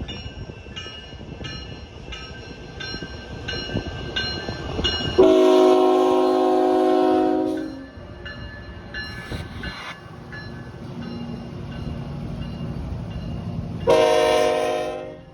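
Diesel locomotive air horn sounding for a grade crossing: a long blast, a brief one, then another long blast near the end, over a low locomotive rumble that builds as the train nears. Under it a mechanical crossing bell strikes steadily about twice a second.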